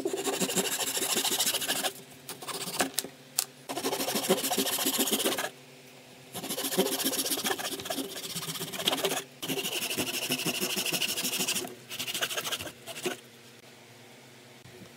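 Hand saw cutting through a thin wooden dowel in rapid back-and-forth strokes, in several bursts with short pauses between cuts, stopping near the end.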